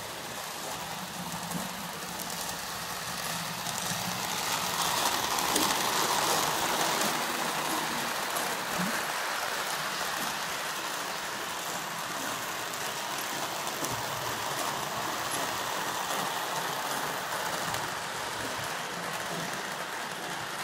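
Marx 333 toy electric steam locomotive running on track while pulling a string of freight cars: a steady rolling noise from its motor and from the wheels on the rails, louder for a few seconds about five seconds in.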